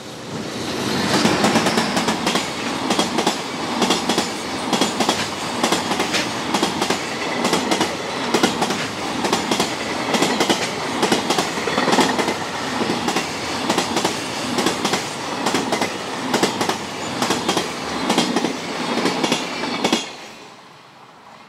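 Loaded container flatcars of a freight train rolling past at speed: a steady, loud clickety-clack of wheels running over the rail joints with a regular, rapid beat. Near the end the sound falls away quickly as the last wagon passes.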